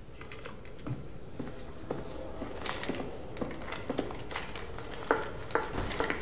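Footsteps on a hard floor: light, slightly irregular steps, about two a second, starting a little over two seconds in, over a faint room hush.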